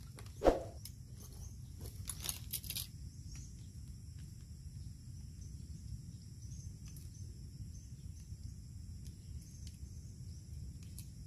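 Quiet waterside ambience with a steady high-pitched chirring of insects over a low rumble. A single sharp thump comes about half a second in, followed around two to three seconds in by rustling and clicking as the fishing rod and reel are handled.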